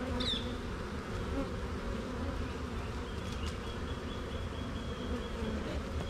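Honeybees buzzing around an open hive, a steady hum.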